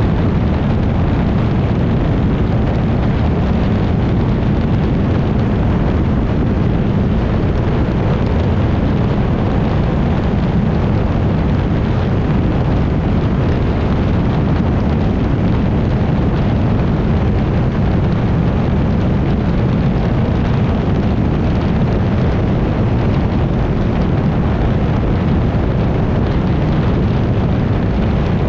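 Mercury 60R outboard motor running steadily at speed on a small tunnel-hull boat, mixed with rushing water and wind buffeting the microphone. The sound holds level, with no change in engine pitch.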